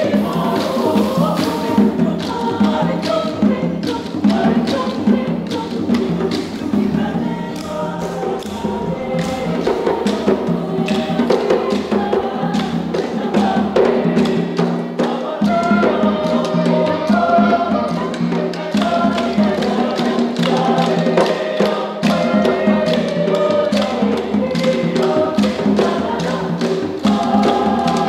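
Choir singing a Makassar traditional song in harmony, with sharp, rhythmic wooden clicks and taps running under the voices.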